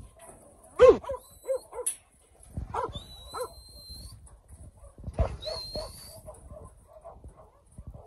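Working sheepdog barking at sheep in the yards to move them along: a sharp, loud bark about a second in, two more near three seconds and another just past five seconds, then a run of quicker, softer barks toward the end.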